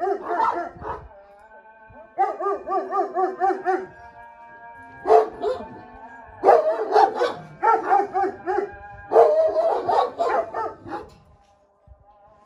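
Dogs barking in several rapid runs, about four or five barks a second. Between the runs there is a steady, held whining note.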